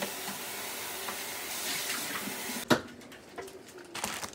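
Kitchen sink tap running as an emptied meat tray is rinsed out under it. The water stops about two-thirds of the way through, with a single sharp knock, the loudest sound.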